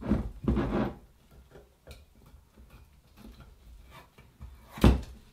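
Stopper being twisted off a glass gin bottle: a run of faint clicks and scrapes, then one louder knock near the end.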